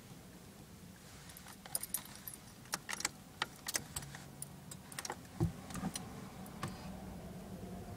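Car keys jangling and clicking in a Subaru Impreza's ignition as the key is worked and turned to switch the ignition on, with a dull thump about five and a half seconds in.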